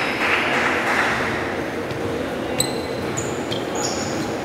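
Sneakers squeaking on a hardwood gym floor, with several short high squeaks in the second half, the sharpest about two and a half seconds in. Distant players' voices echo through the large hall.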